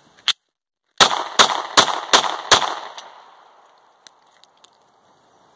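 A 9mm Glock 26 pistol fired five times in quick succession, about two and a half shots a second, with the echo fading out afterward. It is feeding from a Glock 43 single-stack magazine held in by pressure and fires each round without a stoppage.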